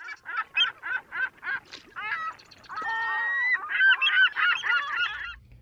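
A flock of birds honking: single calls about three a second for the first two seconds, then many overlapping calls, loudest about four seconds in, stopping just after five seconds.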